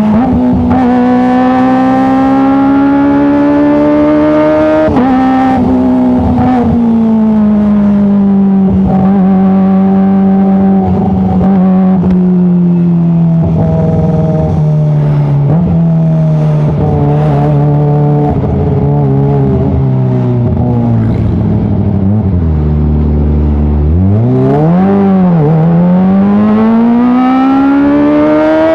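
Kawasaki ZX-25R's 250 cc inline-four engine running through an Arrow full-system titanium exhaust. The pitch rises, drops sharply about five seconds in, then sinks slowly for nearly twenty seconds. After a quick rise and fall it climbs again near the end.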